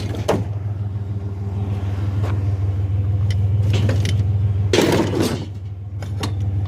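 Truck engine idling steadily with a low, even hum, and a brief burst of noise about five seconds in.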